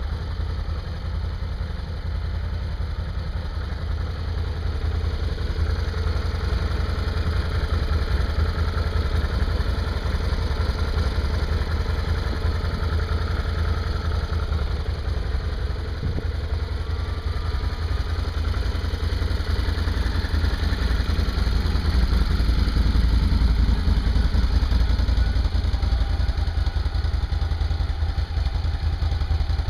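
Can-Am Renegade 1000 ATV's Rotax V-twin engine idling steadily through its stock exhaust, getting somewhat louder over the last third.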